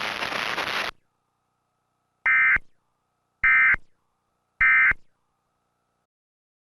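Emergency Alert System end-of-message tones: three short bursts of SAME digital data tones, about a second apart, signalling the end of the test. Before them, a loud hissing noise cuts off about a second in.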